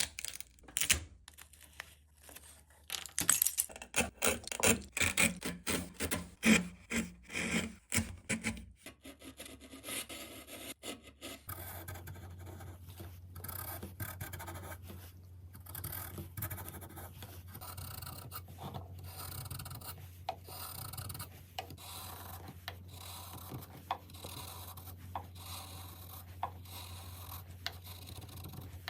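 Woodworking hand-tool sounds: irregular scraping and rubbing strokes on wood for the first third, then a steady low hum with scattered light taps and scrapes.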